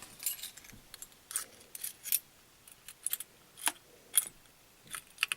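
A bunch of keys jangling, with a dozen or so short, sharp, irregular clinks, as someone sorts through them for the right key.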